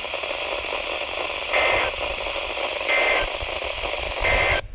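EAS end-of-message code sent three times over NOAA Weather Radio: three short two-tone data bursts about a second and a half apart over a steady hiss of radio static, marking the end of the weekly test message. The static cuts off suddenly near the end.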